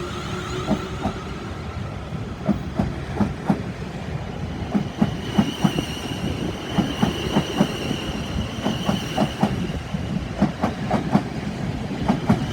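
Class 450 Desiro electric multiple-unit train rolling through the station, its wheels clicking over rail joints and pointwork in a quickening clickety-clack, with a steady high whine from about halfway through.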